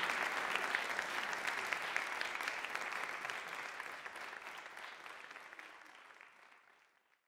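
Audience applauding, the clapping fading away gradually to silence near the end.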